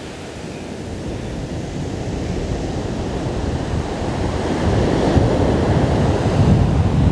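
Surf washing on a beach, with wind on the microphone; the rushing noise grows steadily louder and steps up about two-thirds of the way in.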